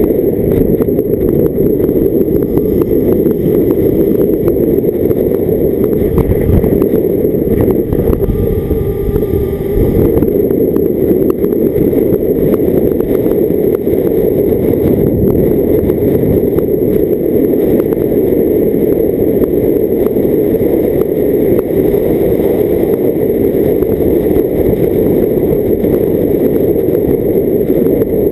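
A car driving at a steady pace, heard from a camera mounted outside on its bonnet: a loud, steady rumble of wind and road noise over the engine. About eight to ten seconds in, the rumble eases briefly and a few faint whining tones show through.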